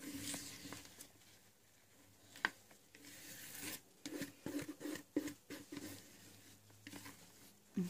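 A spatula scraping thick cake batter out of a plastic mixing bowl into a loaf tin: soft scrapes and small taps, with one sharper tick about two and a half seconds in.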